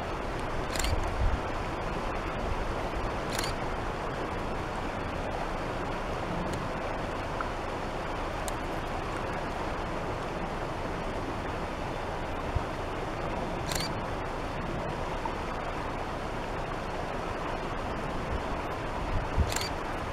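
Steady rush of a shallow rocky river flowing over stones, with four faint sharp clicks scattered through.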